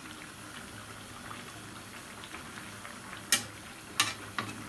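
Curry simmering in an aluminium kadai, a steady bubbling crackle, while a slotted metal spatula stirs it gently. Near the end the spatula knocks sharply against the pan twice.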